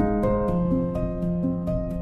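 Gentle solo piano background music, with notes struck at a steady, even pace.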